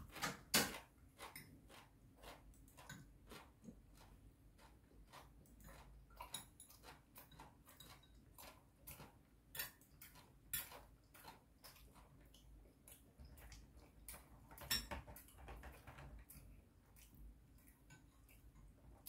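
Quiet eating sounds: metal chopsticks and a spoon tapping and clicking against ceramic bowls and a plate in an irregular string of small clicks, with two louder clinks, about half a second in and about three-quarters of the way through.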